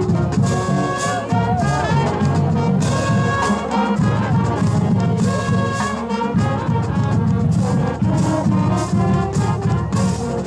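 High school marching band playing: brass instruments carry the tune over a steady beat from the drumline.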